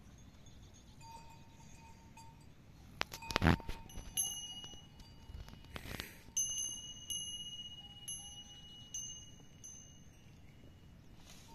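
Small metal bells ringing in separate strikes, each high tone lingering before the next, from about four seconds in. A few sharp knocks about three seconds in are the loudest sound.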